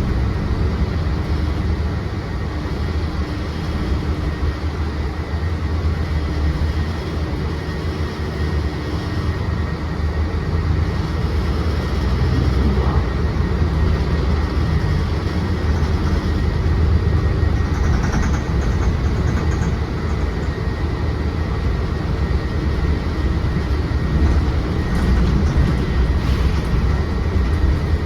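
Interior of a Mercedes-Benz Citaro C2 city bus on the move: a steady deep rumble of the engine and road noise, with a faint high steady whine running through it.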